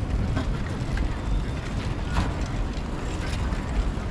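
Outdoor city ambience: a steady low rumble with scattered clicks and knocks, and faint voices in the background.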